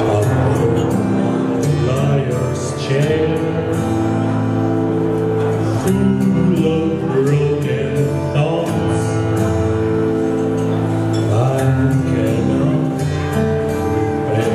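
A male vocalist singing into a handheld microphone over instrumental accompaniment, amplified through the venue's sound system.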